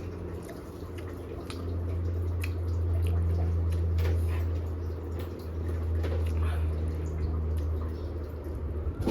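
Wet eating sounds, chewing and lip smacks heard as scattered short clicks, over a steady low hum that swells in the middle.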